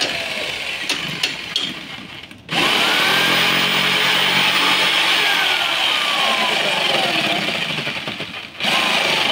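Corded jigsaw running and cutting through a painted wooden board. The saw cuts out briefly about two and a half seconds in and starts again at once, then cuts out and restarts once more near the end.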